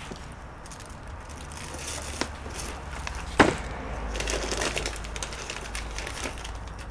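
Jumper wires being handled on a workbench: a few sharp clicks, the loudest about halfway through, and light rustling over a low steady hum.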